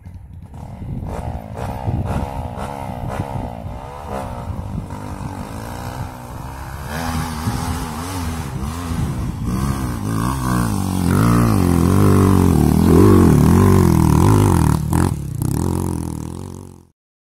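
Dirt bike engine revving hard as it climbs a steep dirt hill, its pitch swinging up and down again and again as the throttle is worked. It grows louder as the bike comes up close, with a couple of sharp knocks near the end, then cuts off suddenly.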